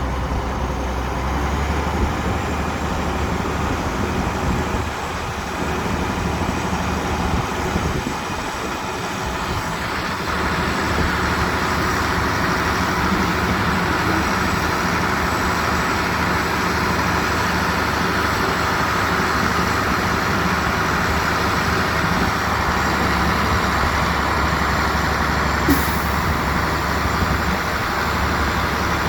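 Heavy diesel construction machinery running steadily, its engine drone and working noise growing fuller about ten seconds in. There is one short click near the end.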